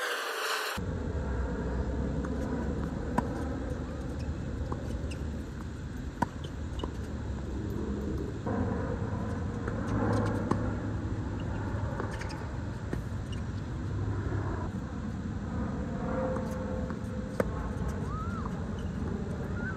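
Tennis balls struck by racquets during a doubles rally: sharp single pops a few seconds apart, over a steady low rumble.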